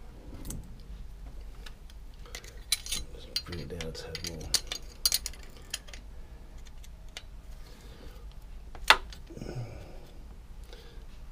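Small metal tools clicking and clinking against the rocker arms and adjusting screws of a Volvo Penta KAD 44 diesel's valve gear while its valve clearances are set, with one sharp clack late on.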